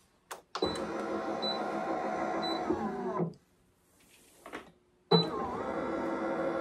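Electric motor of an HTVRont Auto Press 2 automatic heat press running twice, about two and a half seconds each with a short pause between, as it drives the heat plate after being restarted.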